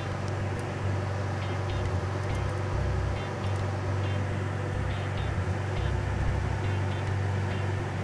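Steady low hum of a laminar-flow clean bench's blower, with faint light ticks of a small screwdriver and metal parts on an opened laptop hard drive.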